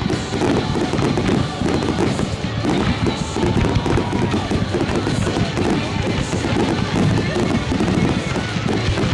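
Fireworks barrage: many aerial shells bursting in quick succession, a continuous rattle of bangs and crackle with no break.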